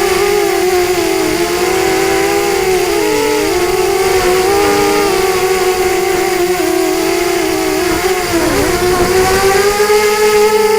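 FPV quadcopter's motors and propellers whining steadily, several close tones weaving apart and together as the motor speeds shift. A brief dip in pitch comes about eight seconds in, followed by a rise.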